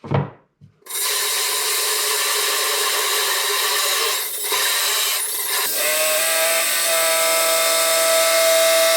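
A power saw starts about a second in and runs steadily, cutting through aluminum. Past the middle a high, steady whine joins the sound as the blade works in the metal.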